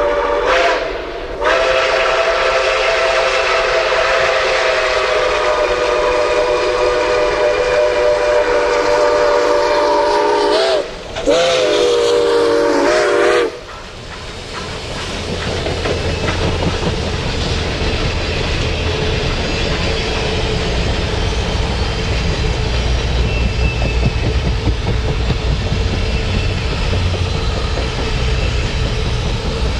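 Chime steam whistle of Nickel Plate Road 2-8-4 Berkshire steam locomotive No. 765, several notes sounding together: a short blast, then a long held blast, then another blast that ends about halfway through. After that the locomotive and its passenger cars roll by with a low, steady rumble.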